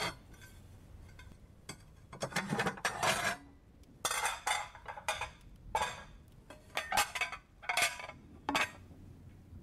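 Tableware being handled: a series of about eight short clinks and scrapes spread over several seconds.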